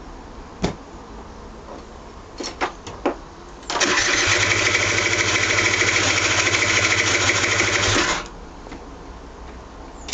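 Aprilia SR50 DiTech 50cc two-stroke moped being cranked on its electric starter: a few clicks, then a steady whirring turn-over for about four seconds that stops abruptly without the engine staying running. It sounds almost as if it has caught, yet it will not start; the owner blames a disturbed mixture screw, with the spark plug fouling black.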